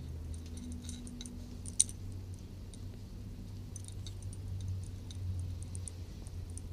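Small metal tags on a cat's collar jingling and clinking as the cat is scratched under the chin, with one sharp clink about two seconds in, over a low steady hum.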